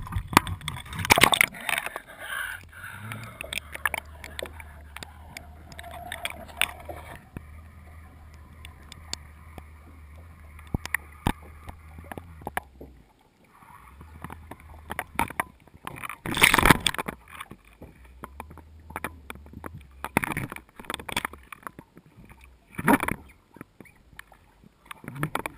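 Muffled, watery sound from an action camera in its waterproof housing as it sinks on a fishing line into the sea. There is gurgling and knocking at first, then a low steady hum broken by a few sharp knocks; the loudest knock comes about two-thirds of the way through.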